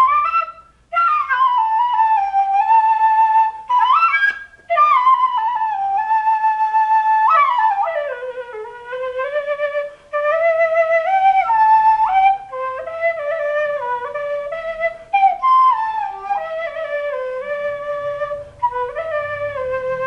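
Solo quena, the Andean end-notched flute, playing a slow improvised melody. The notes are held, there are slides and bends between pitches, and the player breaks off for short breaths several times.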